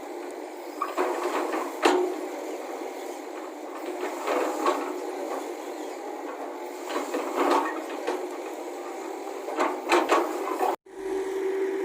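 Excavator working: a steady engine drone with irregular metallic clanks and knocks from the bucket and arm. The sound drops out for a moment near the end, then the drone resumes more evenly.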